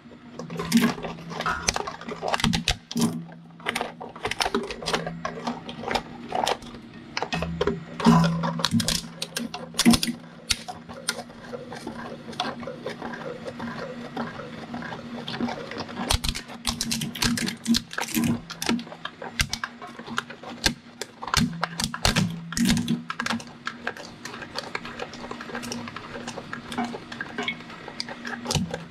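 Twin-shaft shredder's slow cutter shafts biting into a pair of large binoculars: irregular cracks and snaps over the machine's steady low hum.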